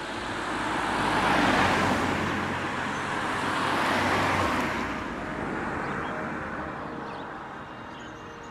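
Cars passing on a road close by, one after another: the tyre and engine noise swells to a peak about a second and a half in, swells again about four seconds in, then fades away.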